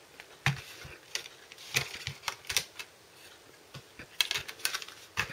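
Hands handling a DVD box set's plastic disc trays and pages: a series of light, irregular clicks and taps, coming thicker about four seconds in.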